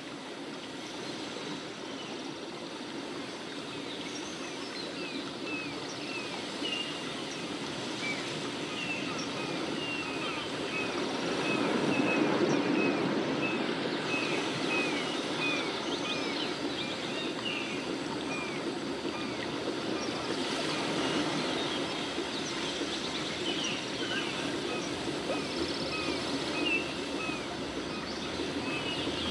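Steady outdoor background noise, with short high chirps repeating about twice a second through the middle stretch, typical of a small bird calling.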